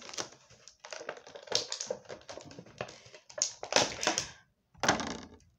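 Clear plastic blister packaging handled by hand as an action figure is pulled out of it: an irregular run of crinkles, crackles and sharp plastic clicks.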